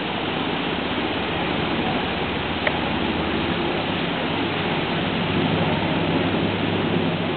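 Steady rushing background noise, with one short click about two and a half seconds in.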